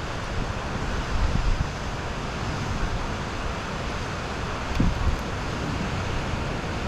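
Heavy rain falling in a steady hiss, with wind gusts rumbling on the microphone about a second and a half in and again near five seconds.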